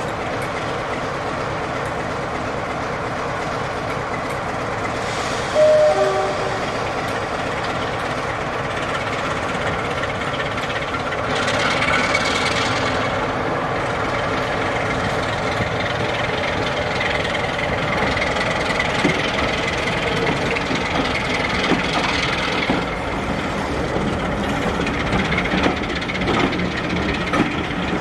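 Diesel locomotive D1842 ticking over at the head of its train of coaches, with a short sounding of its horn about five and a half seconds in. About eleven seconds in the train pulls away, the engine note rising and the coaches' wheels clicking over the rail joints as they move off.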